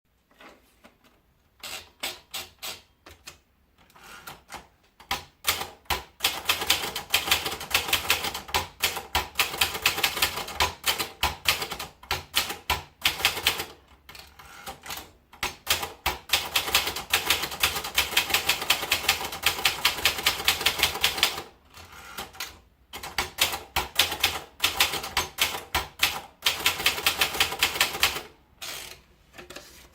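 Gracia De Luxe typewriter being typed on: fast runs of sharp key strikes, broken by a few short pauses.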